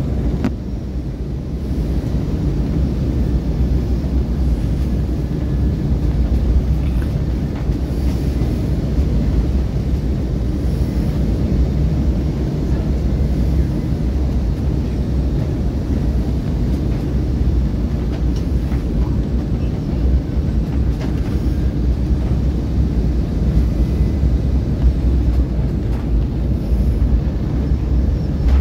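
Steady low rumble of a jet airliner heard from inside the cabin on final approach, engine and airflow noise, running on through touchdown and the roll along the runway.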